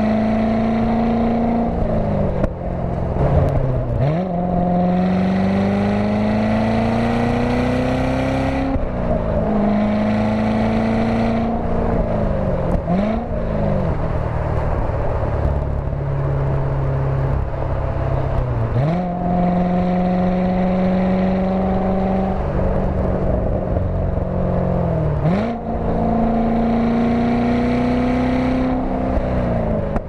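2014 Corvette Stingray's 6.2-litre LT1 V8 with its exhaust valves open, heard from the open-roof cabin while driving through the gears of its seven-speed manual. The engine note climbs slowly in each gear and changes at about six shifts; several of them show a quick dip and a sharp rise in revs, the automatic rev matching blipping the throttle. Wind and road noise run underneath.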